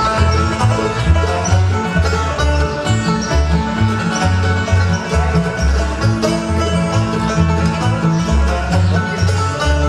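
Bluegrass band playing live: banjo, mandolin and acoustic guitar picking over an upright bass that plucks a steady beat of about two notes a second.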